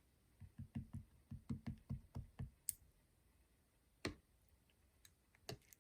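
A quick run of about ten soft, low knocks over two seconds, then a sharp click and two more single knocks a second and a half apart.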